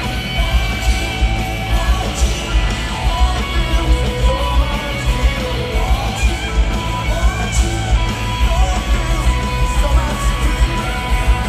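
A rock band playing live in an arena at full volume: electric guitars, bass and drums, with a wavering melody line over a heavy bass pulse.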